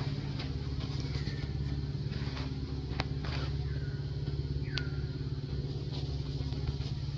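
Steady low drone of an idling engine, with three short high calls that slide downward in pitch, about a second, three seconds and nearly five seconds in, and a couple of sharp clicks.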